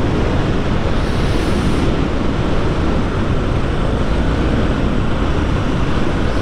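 Steady wind rush buffeting the camera microphone on a moving Yamaha Serow 250 motorcycle, with the bike's single-cylinder engine running underneath.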